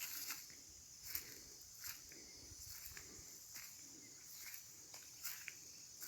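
Steady high-pitched chirring of insects such as crickets, with intermittent footsteps of someone walking.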